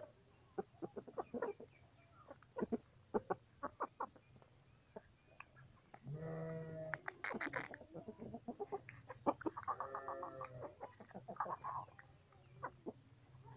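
Aseel chickens clucking: scattered short clucks, a longer pitched call about six seconds in, and another, pulsing call around ten seconds.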